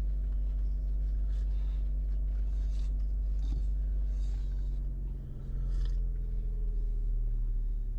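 Steady low drone of a car's cabin, with faint light ticks and rustles over it.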